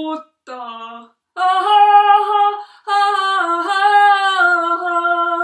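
A woman singing unaccompanied in Finnish: a short sung word, then two long phrases of held, sustained notes.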